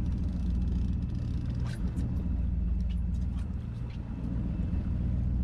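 Boat engine running steadily at low speed, a low even rumble, with a few faint ticks around the middle.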